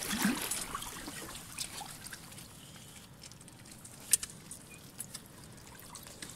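Water trickling through and over the mesh screen of a whitebait net, louder in the first second and then softer, with a single sharp click about four seconds in.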